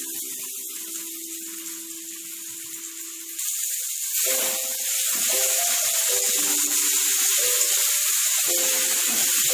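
Marinated soya chunks sizzling in hot oil with fried onions in a kadai as they are stirred; the sizzle gets much louder about three seconds in and stays loud. Soft background music plays under it.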